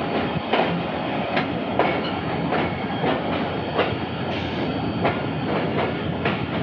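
Passenger train rolling slowly, its wheels clicking over rail joints and points at irregular intervals of about half a second to a second, over a steady running rumble.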